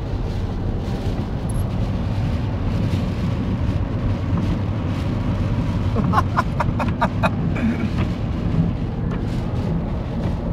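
Steady road and engine noise of a car cruising on a wet motorway, heard from inside the cabin. About six seconds in there is a short quick run of sharp clicking strokes lasting about a second.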